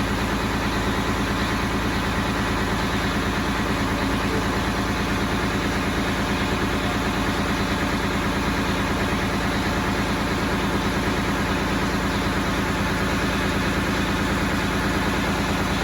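Mack Cruiseliner cabover truck's diesel engine idling steadily.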